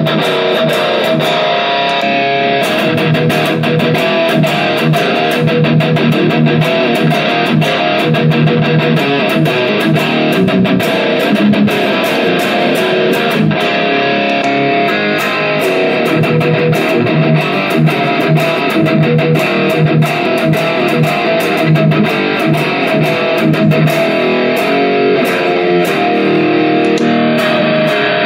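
Electric guitar played continuously through a Valeton GP200 multi-effects processor into a small Cort CM15R amp, a steady stream of picked and strummed notes.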